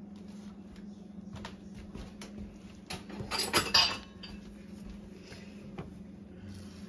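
A spatula knocking and scraping against a mixing bowl and a nonstick frying pan, with a loud burst of clattering dishes about three seconds in, then a few lighter taps as the eggs are pushed around the pan.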